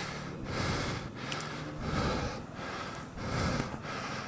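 A rider panting heavily after exertion, with loud, rapid breaths that come and go in regular swells.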